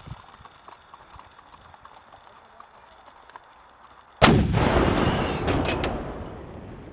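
Horses' hooves clip-clopping faintly as they walk on a track. About four seconds in, a single loud cannon shot goes off and dies away over about two seconds.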